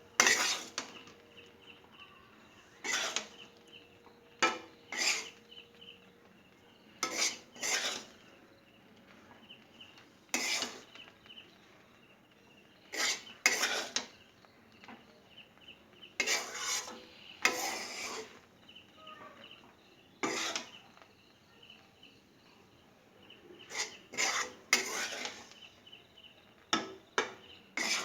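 A spatula scraping and stirring grated coconut in a kadai (wok), in short, irregular strokes about every one to two seconds.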